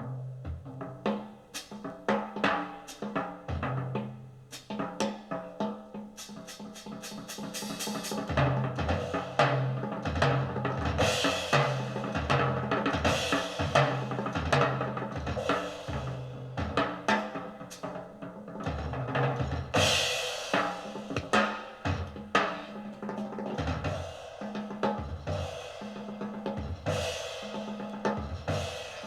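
Jazz drum kit played busily, with snare rolls, bass drum and crashing cymbals, over a double bass holding long low notes.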